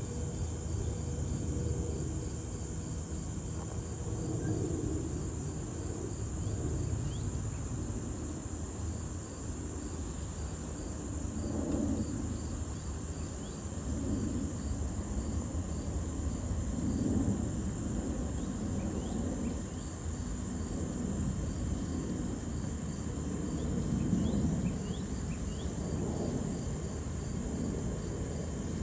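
Low, distant jet rumble from a McDonnell Douglas MD-11F trijet freighter flying high overhead, swelling and fading every few seconds. A steady, high-pitched insect drone runs over it.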